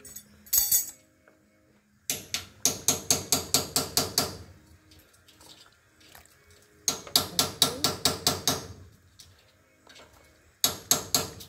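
A carton of coconut milk shaken out over a cast-iron pan, knocking in three runs of rapid sharp taps, about six a second. The first two runs last about two seconds each and the last is short.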